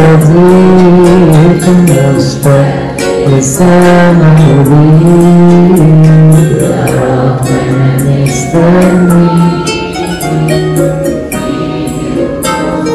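Arabic Christian hymn: a man's voice sings held, gliding notes over backing music with steady light percussion taps. The music grows thinner and a little quieter about halfway through.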